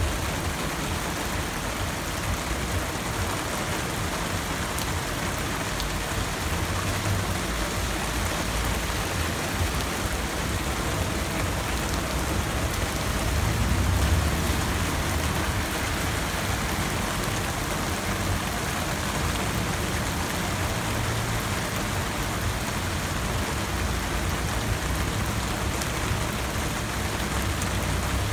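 Heavy rain pouring onto a flooded asphalt street, a steady dense hiss of drops splashing into standing water. A low rumble swells briefly about halfway through.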